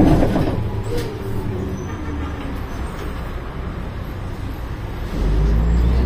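1993 Ikarus 280.49 articulated bus heard from inside the passenger cabin while driving: a steady diesel engine rumble with road noise. About five seconds in, the engine grows clearly louder with a strong low drone as it pulls harder.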